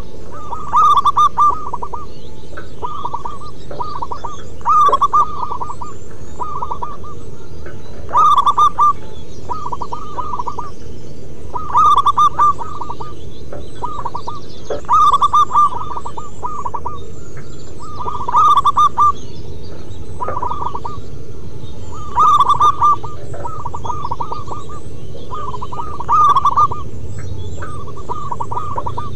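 Zebra doves (perkutut) cooing: short phrases of rapid, rippling coo notes repeated over and over, a louder phrase about every four seconds with softer phrases in between, over a steady low background noise.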